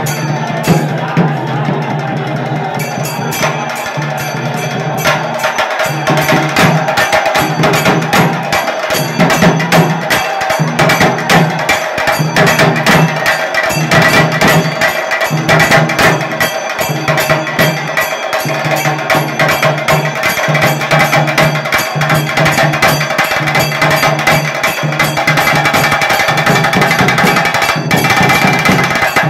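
Percussion music: drums beating a steady pulse under rapid, sharp clicking strikes in a fast even rhythm, with a held higher tone running through it.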